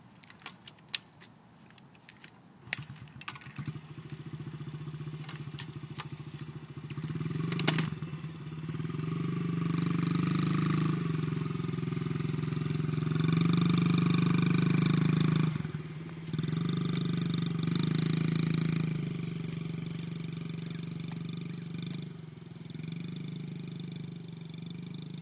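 Small dirt bike's engine: a few clicks and knocks, then it starts about three seconds in and runs, its speed rising and falling as it rides. It cuts back briefly about halfway through, then picks up again and fades as the bike moves away.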